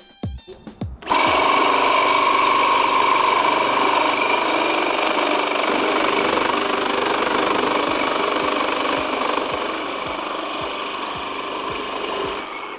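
Makita JR002G 40V cordless reciprocating saw, set to speed 2 of its five-step dial, cutting through a steel pipe: a loud, steady sawing noise of blade on metal. It starts about a second in and stops abruptly near the end.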